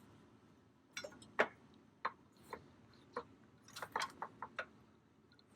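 Light metallic clicks and taps as a lawnmower blade and its bolt are handled and fitted up to the spindle under the deck. The clicks come singly at first, then in a quick run about four seconds in.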